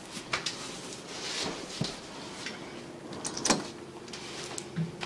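Scattered light knocks and rustling as things are handled and someone moves about the room, with one sharper knock about three and a half seconds in.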